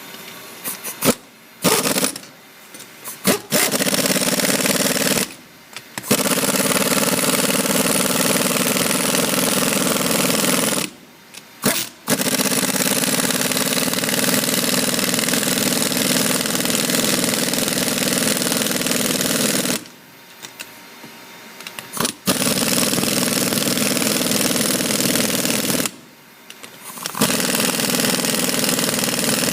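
Air impact wrench driving the nuts down on a U-bolt hose clamp. It runs in several bursts: a few short ones, then long runs of up to about eight seconds, with short pauses between.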